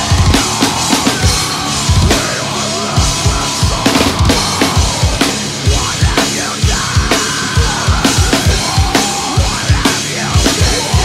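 Acoustic drum kit played hard in a heavy metal groove: rapid bass drum strokes, snare hits and cymbals, over the recorded guitars and vocals of the song being covered.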